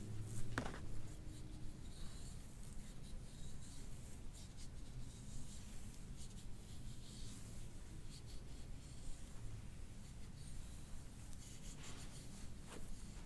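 Soft, intermittent rubbing and brushing of hands working over the patient's body during hands-on soft-tissue work, with a single sharp click about half a second in.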